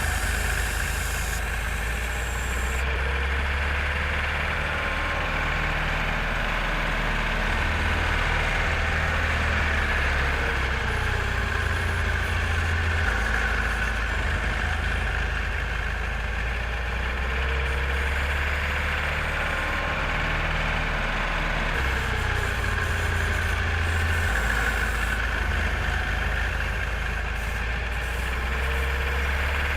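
Diesel engine of a JCB 4CX backhoe loader running steadily.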